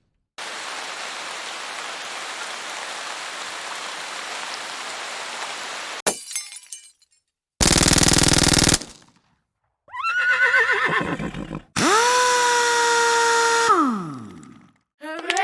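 A run of separate stock sound effects with short gaps between them: a steady hiss lasting about six seconds, a sharp crack, a brief loud buzz, then several pitched, wavering calls or tones, one of them held steady before gliding down.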